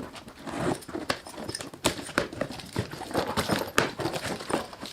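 A run of irregular knocks and clicks, several in quick succession and others spaced out.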